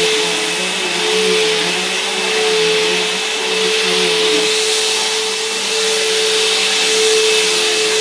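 Bissell CleanView Helix bagless upright vacuum running on carpet: a steady motor whine over rushing airflow, swelling and dipping slightly as it is pushed back and forth.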